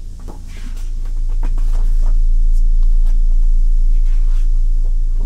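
Pages of a K-pop album photo book being turned and handled, with scattered paper rustles and light clicks over a steady low hum.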